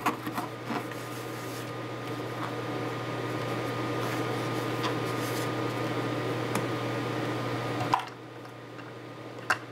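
Cotton wad wet with 99% alcohol scrubbed over the solder pads of a BGA site on a circuit board, a steady rubbing over a low hum. The rubbing stops abruptly about eight seconds in, leaving the hum and a single click near the end.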